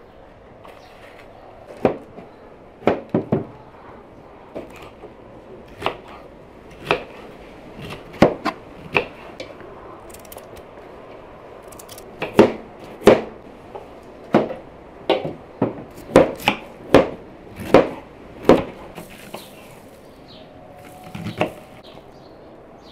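Knives chopping carrots and cabbage on wooden cutting boards: irregular sharp knocks, coming faster and more evenly for several seconds in the second half.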